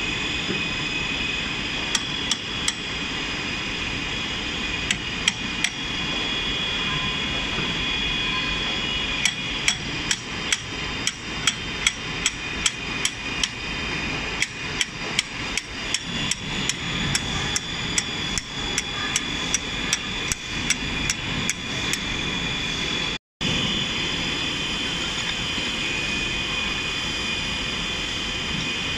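Slide hammer puller striking repeatedly, its heavy steel weight slammed against the stop to draw a plug out of a slewing bearing's outer ring. A few sharp metallic knocks come first, then a fast run of about two knocks a second for some twelve seconds.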